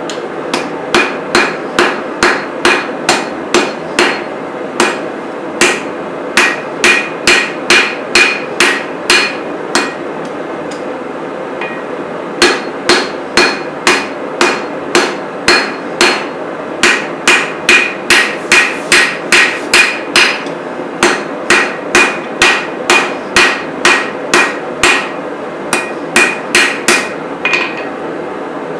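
Hand hammer striking a hot knife blade on an anvil in steady runs of about two blows a second, each blow ringing briefly, with a pause of about two seconds midway. A steady rushing noise continues underneath.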